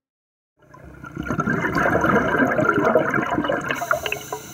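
Rush of bubbling, gurgling water, starting about half a second in and building quickly, dense with small irregular crackles; a brighter hiss joins about four seconds in and the sound begins to fade near the end.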